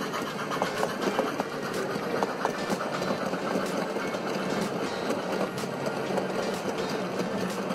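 Gauge 1 model train rolling past: a steady rumble of wheels on the rails, with many irregular clicks as the coaches and goods wagons run over the track joints.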